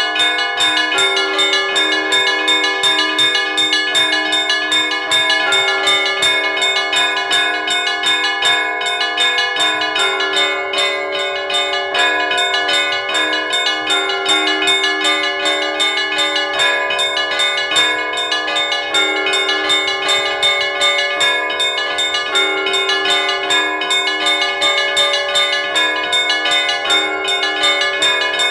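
Church bells ringing in a continuous peal: several bells of different pitches struck many times a second, their tones overlapping with no pause.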